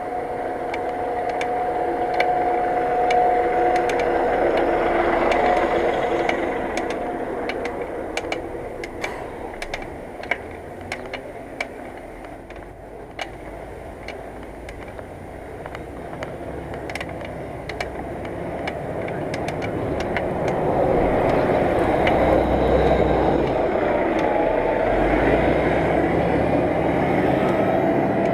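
Motor traffic going by on a road, heard from a bicycle. A vehicle's engine note sounds strongly for the first few seconds, then fades. A quieter stretch follows with scattered sharp clicks, and louder rumbling road noise builds again over the last several seconds.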